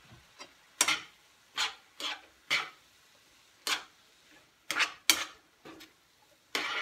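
A utensil scraping and knocking against a frying pan as chopped vegetables are stirred: about nine short strokes at irregular intervals.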